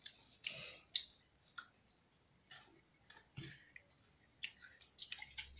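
Faint, irregular clicks and taps of a cat's paw and claws striking a tablet's glass screen, about a dozen, with several close together near the end.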